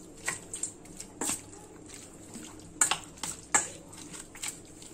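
A steel spoon stirring raw chicken pieces through a thick wet marinade in a stainless steel bowl. The mixture squelches, broken by irregular clinks and scrapes of the spoon against the bowl.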